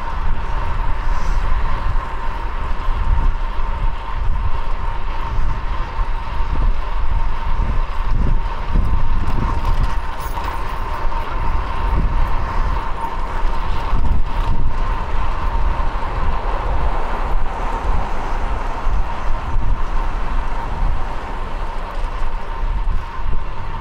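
Wind rumbling over the microphone of a cyclist riding through city traffic, with road and vehicle noise and a steady high-pitched hum over it.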